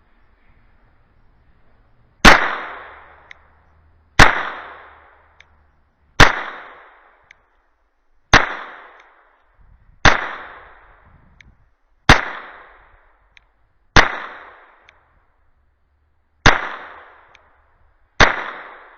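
A .22 LR firearm firing nine single shots about two seconds apart, each sharp crack ringing off for about a second.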